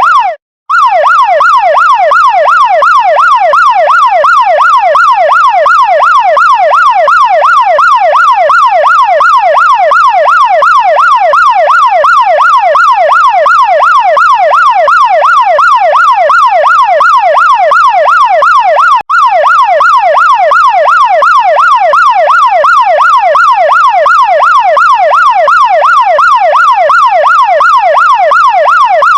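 Chinese fire truck electronic siren sounding a fast up-and-down yelp, about three sweeps a second. It cuts out briefly just after the start and again for an instant about two-thirds of the way through.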